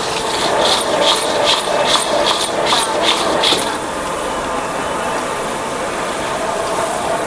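Street food stall cooking noise: a steady hiss with short, sharp high-pitched strokes about two or three times a second. The strokes stop a little over halfway, and the hiss carries on.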